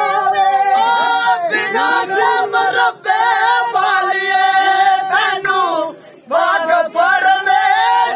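Men singing a Dogri folk song in full voice, with long held, wavering notes and brief breaks for breath about three and six seconds in.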